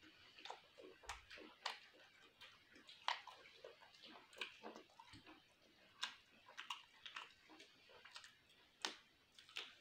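Close-up eating sounds: a person chewing a mouthful of chicken curry and rice with wet mouth clicks and lip smacks, coming as a quiet, irregular string of short snaps, the loudest about three and six seconds in.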